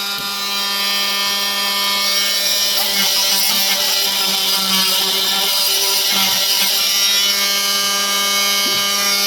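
A handheld electric power tool runs steadily at full speed with a high motor whine, cutting a hinge recess into a hard composite door, with uneven cutting noise over the whine.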